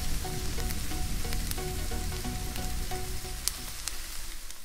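Chilli chicken sizzler hissing and crackling on its hot iron sizzler plate, with scattered sharp pops over a steady hiss, fading near the end. Quiet background music plays underneath.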